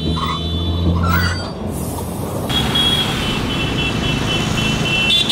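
Steady low drone of a city bus heard from inside the cabin, giving way about two seconds in to street traffic noise with a steady thin high whine over it.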